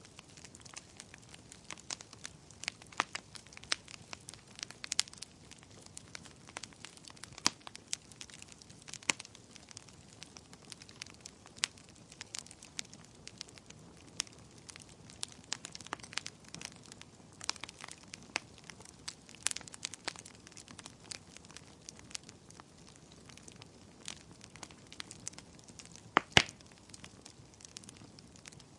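Bonfire burning, wood crackling with irregular sharp pops over a low steady hiss, the loudest a double snap near the end.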